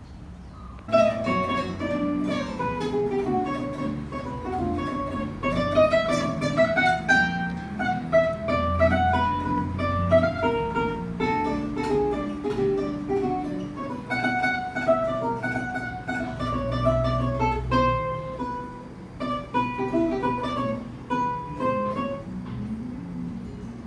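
Background music: an instrumental tune of plucked, guitar-like notes over a bass line, starting suddenly about a second in.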